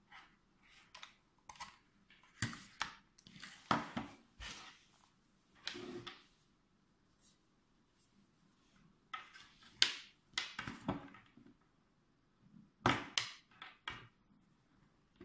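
Handling noise of a plastic LED work light, a USB cable and a smartphone: scattered clicks, taps and rustles, with a few sharper clicks as the cable is plugged in.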